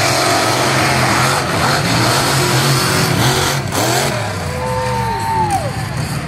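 Monster truck engines running loud and revving hard as two trucks race across a dirt track, the engine note stepping up and down. About four seconds in, rising and falling whines come through above the engines.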